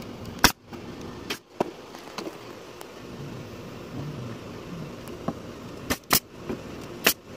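Porter-Cable pneumatic brad nailer firing single shots into pine boards, about six sharp clacks spread over the stretch, several cut off abruptly.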